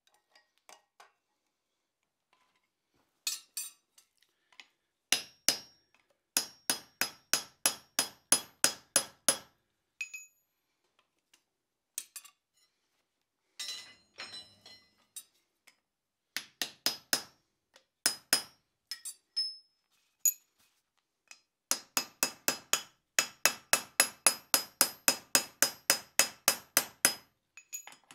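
Blacksmith's hammer striking a steel plate on the anvil, in runs of quick blows about three to four a second, each with a short high ring. The longest run comes in the second half.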